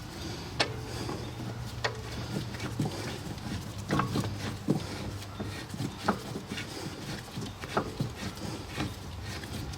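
Scattered light clicks and knocks of tools and brake parts being handled, about seven at irregular intervals, over a low steady hum that fades about three seconds in.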